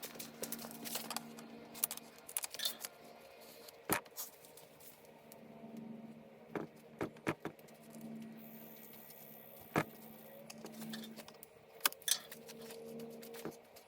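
Irregular clicks and taps of hands working a plastic HVAC heater box while sticking on foam seal strip. The sharpest knocks come about 4 and 10 seconds in, over a faint low hum.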